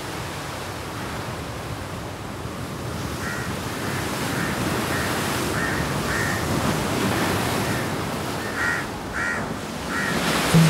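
Ocean surf breaking on a beach, a steady rush of waves, with crows cawing in short repeated calls. The caws come in a run from about three seconds in and again near the end.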